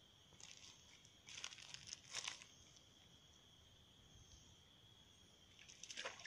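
Faint steady high-pitched drone of insects, with several short dry crackling rustles, the loudest about two seconds in and another cluster near the end.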